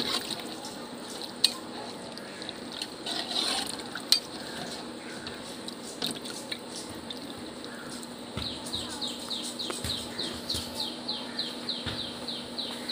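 A metal spoon stirring and clicking against the side of a pot of simmering biriyani gravy, with liquid sloshing. In the second half a rapid run of high, falling chirps comes in, about four a second.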